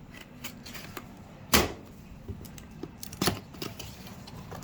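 A few scattered clicks and knocks from objects being handled. The loudest comes about a second and a half in, with a quick pair about three seconds in and lighter ticks between.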